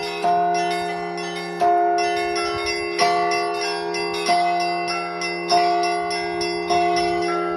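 Russian Orthodox church bells being rung. A louder stroke comes about every 1.3 seconds, while smaller bells chime quickly in between over a steady low bell hum.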